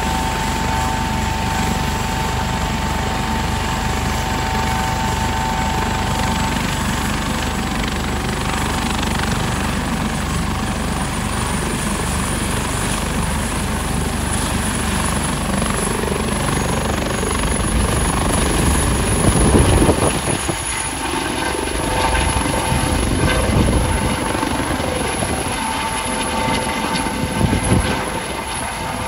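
Rescue helicopter running on its pad and then lifting off: a steady turbine whine and rotor noise that fades from one whine into a slowly rising high tone as power comes up, with the rotor growing louder in low beating surges toward the end as it climbs overhead.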